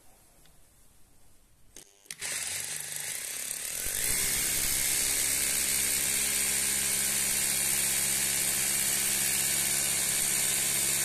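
Katana HD 6100F SDS-plus rotary hammer starting up about two seconds in and boring into hardened concrete, running in hammer-drill mode. It gets louder about four seconds in, then runs steadily.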